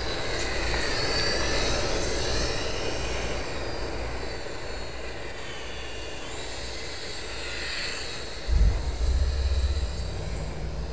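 Micro RC electric airplane's motor and propeller whining in flight, the pitch rising and falling as it flies past. About eight and a half seconds in, a low rumble comes in on the microphone.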